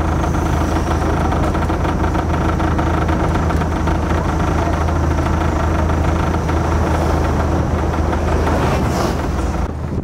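Open-top double-decker tour bus's engine running, a steady low hum under a dense rushing road and wind noise heard from the top deck; it cuts off near the end.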